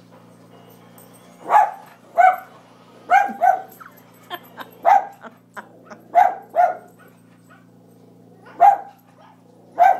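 A dog barking at the television: about nine short, sharp barks, some single and some in quick pairs, starting about a second and a half in with pauses of a second or more between them.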